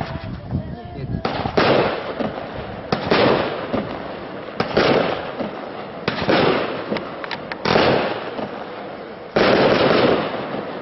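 Jorge 'Bombard' F3 salute battery firing: six loud flash-bang reports about a second and a half apart, the last the loudest, each trailing off with crackle.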